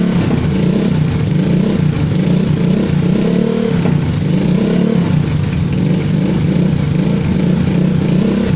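GNC 125 motorcycle's single-cylinder four-stroke engine idling steadily through an aftermarket DM exhaust, loud and echoing off the surrounding walls.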